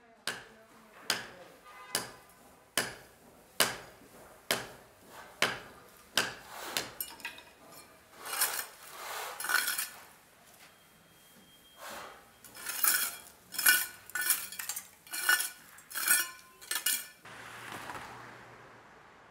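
Steel trowel blade striking and scraping across concrete rubble: sharp taps just under a second apart, then a run of longer scraping strokes. Near the end a passing car's steady hiss takes over.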